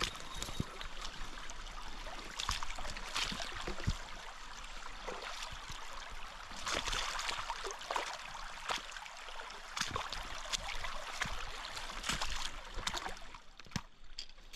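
Boots wading step by step through a shallow rocky creek, with splashes and clacks at irregular intervals over the running water's trickle.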